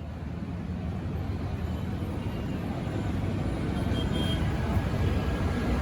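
Low rumble of a train growing steadily louder as it approaches.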